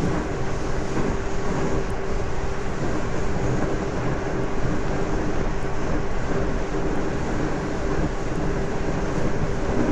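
JR Kyushu 811 series electric train running at steady speed, heard from inside the car by the window: wheels rumbling on the rail under a steady hum from its externally fanned traction motors.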